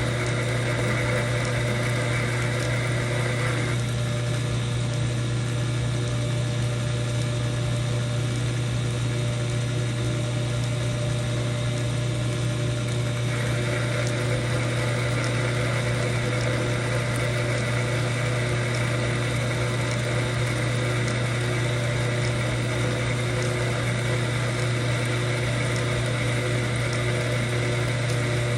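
Old metal lathe running steadily with a constant motor hum. Its higher-pitched part drops away about four seconds in and comes back about thirteen seconds in.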